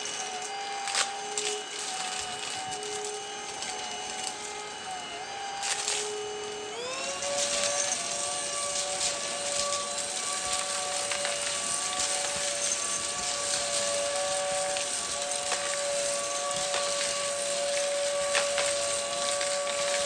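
Prettycare W200 cordless stick vacuum running on a rug, a steady motor whine that glides up to a higher pitch about a third of the way in as the motor speeds up, with a few sharp clicks.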